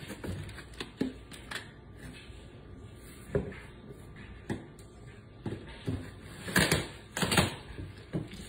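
Products being unpacked from a cardboard box: jars and small boxed items lifted out and set down with irregular knocks and clicks, and cardboard rustling and scraping, loudest about two-thirds of the way in.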